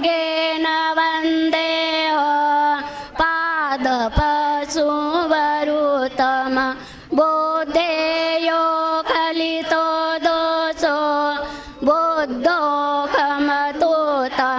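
A group of women chanting Buddhist devotional verses in Pali in unison, to a simple sung melody with long held notes and brief pauses for breath between phrases.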